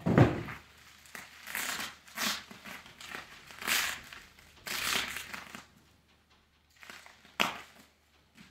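Plastic bubble wrap around a telescope tube crinkling in a series of bursts as it is handled and pulled open. It opens with a dull thump, and there is a sharp click near the end.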